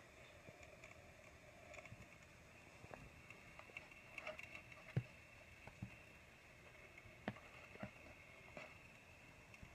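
Near silence: a faint steady hum with scattered small taps and rustles from a cat moving over a laptop and bedding. The sharpest taps come about five seconds in and just after seven seconds.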